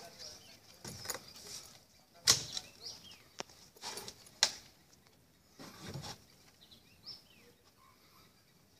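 Wild Asian elephant stepping onto and along a wooden plank boardwalk, the planks giving scattered knocks and thuds under its feet. The loudest thud comes about two seconds in and a sharp knock near the middle, and it goes quiet over the last couple of seconds.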